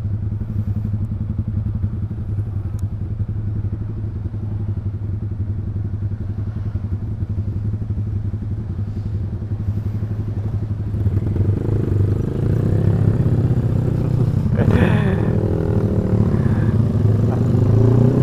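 Yamaha R15 V3's single-cylinder engine through an aftermarket Proliner exhaust, running steadily at low revs, then getting louder about eleven seconds in as the revs rise and fall while riding. A single knock about fifteen seconds in.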